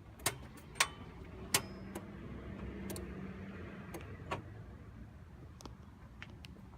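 A run of sharp, irregularly spaced clicks, about ten in all, over a faint low steady hum that rises about a second and a half in and fades about four seconds in.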